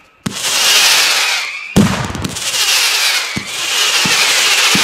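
Daytime fireworks firing volleys of whistling, screaming projectiles: a loud, wavering shriek over a hiss, which cuts in abruptly twice. A few dull bangs sound underneath.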